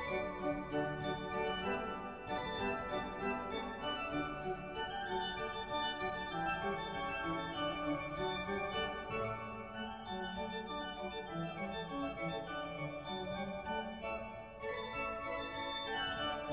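Background instrumental music, a continuous run of held notes changing step by step.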